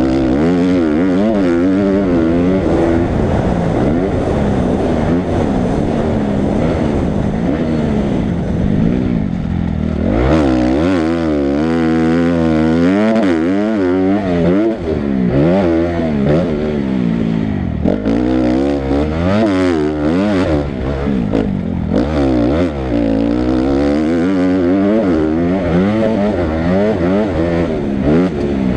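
Motocross bike engine heard from on board, revving up and down continuously as the throttle is worked, with a long rising pull about ten seconds in.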